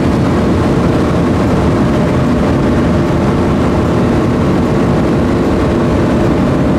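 A vehicle driving at a steady cruising speed: the engine runs evenly under loud road and wind noise, with no change in pitch.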